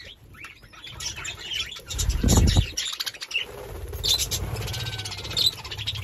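A flock of budgerigars chirping and chattering in short high calls, with wings flapping; a burst of wingbeats about two seconds in is the loudest sound.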